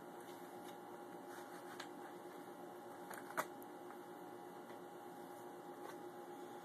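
Quiet room tone: a steady faint hum and hiss, with a few soft clicks, the sharpest about three and a half seconds in.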